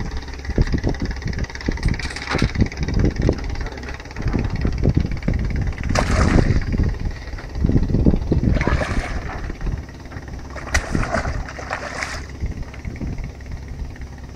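Hooked barramundi thrashing at the water surface beside a dock, splashing in several separate bursts over a steady low rumble.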